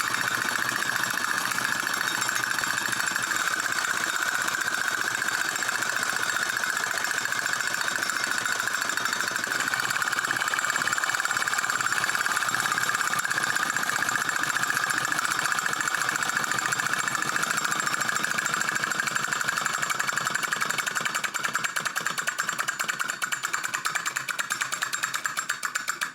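Chein tin wind-up drummer toy running: the clockwork mechanism rattles as the sticks beat very rapidly on the tin drum. The beats slow and grow more distinct near the end as the spring runs down, then stop.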